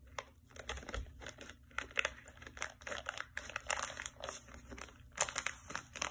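Scissors cutting open a vacuum-sealed plastic bag, the thin plastic crinkling in short, irregular crackles.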